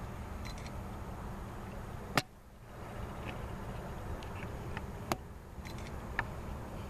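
Night-time outdoor ambience: a steady low rumble with faint, short insect chirps, broken by two sharp knocks about two and five seconds in, the first the louder. The rocket's own sound has not yet arrived.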